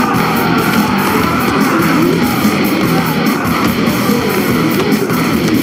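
Hard rock music with electric guitar, loud and continuous.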